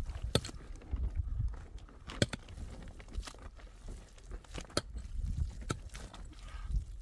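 Scattered sharp knocks and clicks, about one every second or so, over a low rumble.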